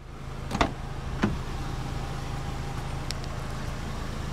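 Two sharp clicks about half a second apart as the Kia Forte Koup's door handle is pulled and the door unlatches and swings open, followed by a steady low hum in the background.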